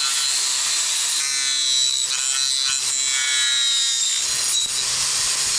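Corded angle grinder running against the concrete top of a foundation wall: a high motor whine over a steady grinding hiss, the whine wavering in pitch from about a second in as the tool is pressed and moved along the concrete.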